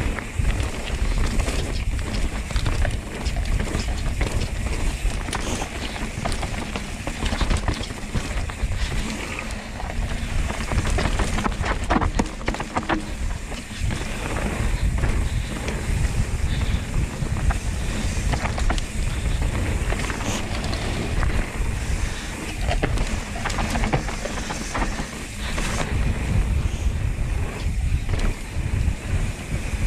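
Wind buffeting the riding camera's microphone during a fast mountain-bike descent on a dirt trail, with tyre noise and the bike rattling and knocking over bumps.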